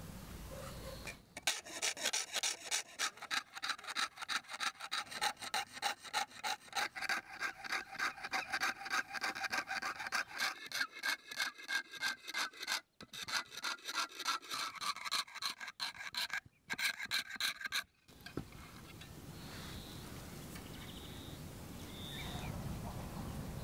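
Jeweler's saw cutting through thin sheet metal held on a wooden board: quick back-and-forth strokes, about three a second, with a couple of brief pauses, stopping about 18 seconds in.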